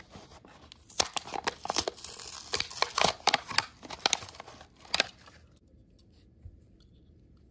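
A Hot Wheels blister pack, its plastic bubble and cardboard backing card, being torn open by hand: a quick run of crackles and rips that lasts about four seconds.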